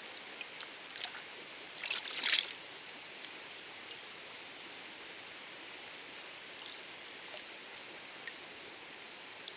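Shallow river running steadily over gravel. About two seconds in, a brief splashing as the plastic outer cup of a Grayl water purifier is dipped under to fill with river water.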